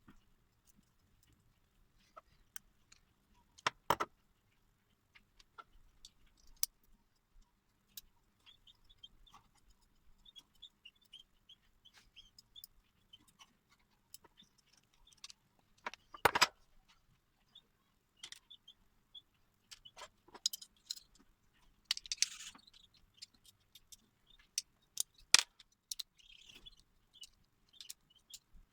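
Scattered light metal clicks and clinks, with three sharper knocks and a brief scrape, as the antique pliers and metal tools are handled at the bench.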